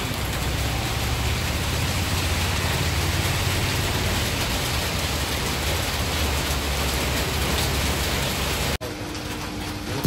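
Electric arc welding on a steel stand frame: a steady crackling hiss with a low hum underneath. The sound changes abruptly near the end.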